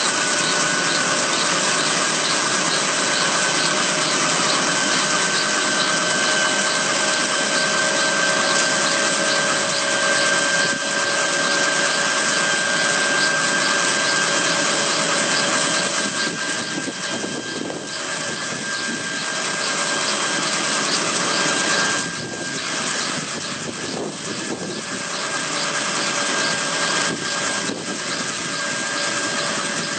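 Kaman K-MAX intermeshing-rotor helicopter running on the ground with its rotors turning: a steady turbine whine over a constant rotor and engine rush, dipping somewhat in level a couple of times in the second half.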